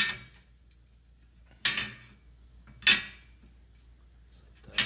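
Steel frame tubes clinking together four times, short sharp metal knocks with a brief ring, as a notched tube is fitted against the neck tube in the frame jig.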